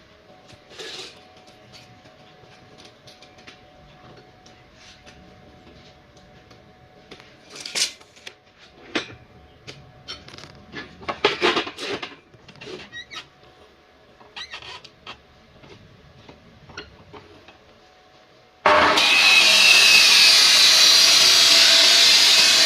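Scattered light clicks and knocks, then a metal cut-off saw's motor switching on abruptly near the end and running loud and steady.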